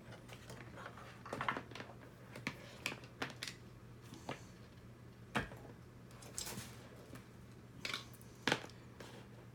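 Scattered light clicks and taps of small plastic parts and cables being handled on a table, about a dozen at irregular intervals, over a faint steady hum.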